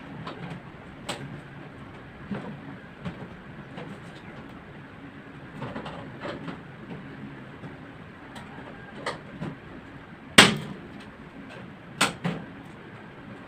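Scattered knocks and clacks of hard objects being handled, with one loud bang about ten seconds in and two sharper knocks a couple of seconds later.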